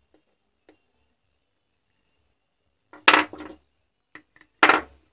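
Battery cells and a soldering iron being handled on a workbench: two short bursts of clattering, the first made of several quick knocks about three seconds in, the second near the end, with a few faint ticks before them.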